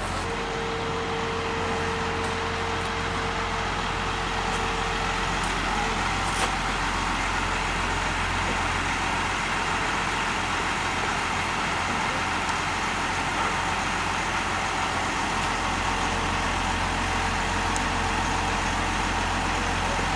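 A steady mechanical drone, like an engine running, with a faint constant hum.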